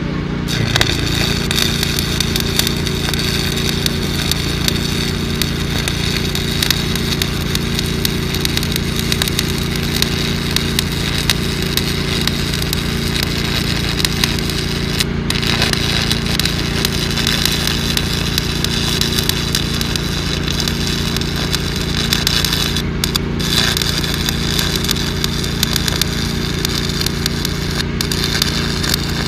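Electric arc welding on pipe: a continuous dense crackle from the arc, broken by a few very brief pauses. A steady engine-like hum runs underneath.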